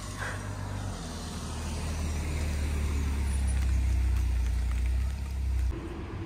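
Low engine rumble of a passing motor vehicle, building louder for a few seconds and then cutting off suddenly near the end.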